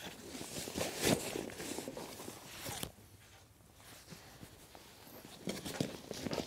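Fabric rustling and rubbing as a rain jacket and a fleece are stuffed into a backpack's nylon cargo compartment, with a short pause about three seconds in.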